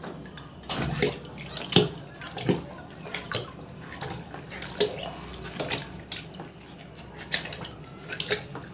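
Water sloshing and splashing in a plastic tub as a hand pushes filled water balloons around, with irregular splashes and drips.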